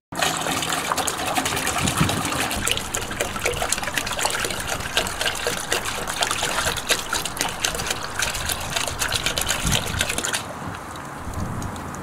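White vinegar poured from a plastic gallon jug into a pail already part-full of liquid, splashing steadily; the splashing drops off about ten seconds in.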